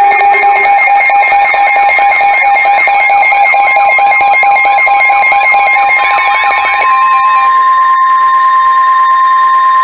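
Emergency Alert System alert tones on NOAA Weather Radio: a loud chord of steady alarm tones with a warbling tone layered over it. About seven seconds in this thins to a single steady tone, the Weather Radio warning alarm tone that comes before a new warning.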